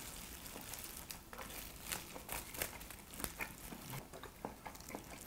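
Quiet, scattered crinkling and clicking of disposable plastic gloves handling halved lobster shells, with some chewing.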